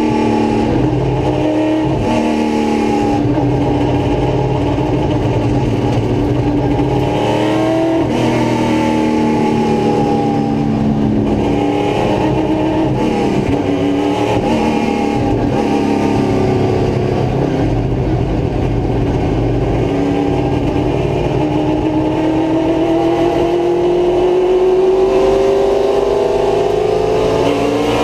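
V8 road-racing car's engine at racing speed, heard from inside the cockpit, its pitch rising and falling repeatedly as the car accelerates and slows through the corners, with a long climb in the last few seconds.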